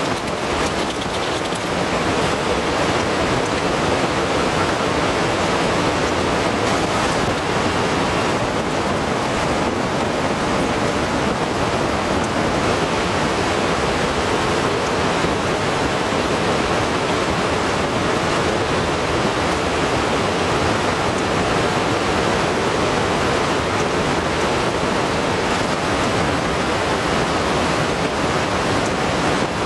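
Heavy rain falling, a loud, steady, dense hiss with no let-up.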